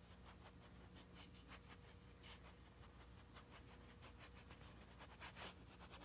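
Near silence with faint, irregular soft swishes of a mop brush blending acrylic paint across a canvas.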